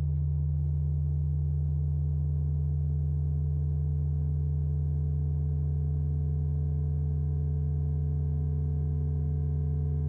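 Steady, unchanging low drone of a horror film score, a sustained ominous tone with no rhythm or melody.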